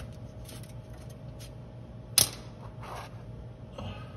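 A hand tool handled under the engine while reaching for the oil filter: a few light clicks and taps, with one sharp click about two seconds in, over a steady low hum.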